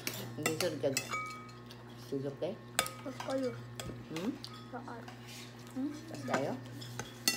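Metal spoons and a serving spoon clinking and scraping against a glass serving bowl and plates as soup is dished up, in scattered sharp clinks. The loudest come about three seconds in and near the end.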